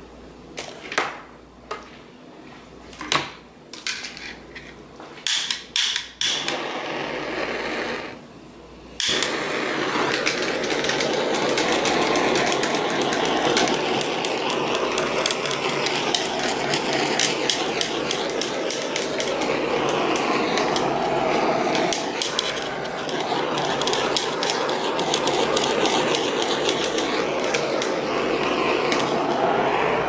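Hair dryer blowing steadily on wet acrylic pour paint from about nine seconds in, a loud, even rush of air with a rough, crackly flutter. Before that come a few knocks and handling clicks and a short burst of the same rushing noise that stops.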